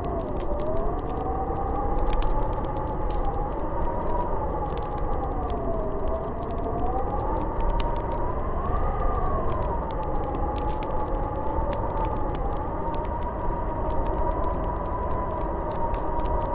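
Howling snowstorm wind: a wavering whistle that slowly rises and falls in pitch, peaking about nine seconds in, over a steady low rumble, with scattered faint ticks.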